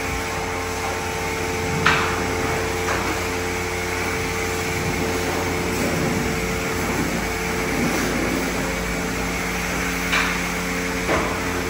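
Car wash tunnel machinery running steadily: a hum with several steady tones over an even hiss, with a few sharp knocks, the loudest about two seconds in and two more near the end.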